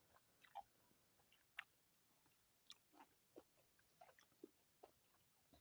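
A person quietly chewing fruit, a blood orange: a scatter of about a dozen faint, short mouth clicks and smacks.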